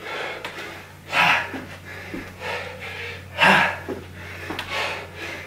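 A man breathing hard from exertion during high-intensity exercise: two loud, forceful exhales about two seconds apart, with quieter breaths between.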